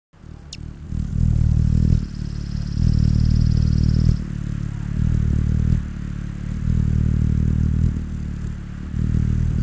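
Hummingbird's wings humming as it hovers at a feeder: a low buzzing drone that swells and fades in several long pulses. A short high descending note sounds near the start.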